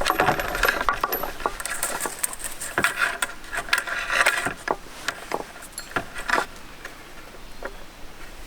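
Clatter and clicks of small hard objects being handled, busiest in the first second and again around three to four seconds in, thinning to a few scattered taps near the end.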